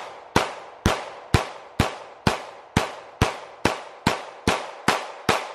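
Glock 19 9mm pistol fired in steady semi-automatic succession, about a dozen sharp shots at roughly two a second, each trailing off briefly before the next.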